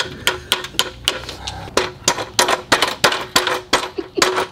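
Hammer striking the steel frame of a mechanic's creeper in quick, irregular taps, about four a second, each leaving a short metallic ring. A bolt is being driven through a mounting hole that is a little out of square.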